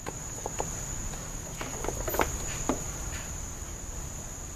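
Light clicks and taps of a plastic power plug being handled at the organ's metal socket bracket, over a steady high-pitched whine.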